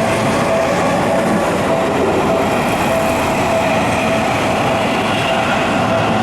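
Train passing over a level crossing with a steady rumble of wheels on rail. Through it the crossing's warning bell rings on in a regular repeating tone.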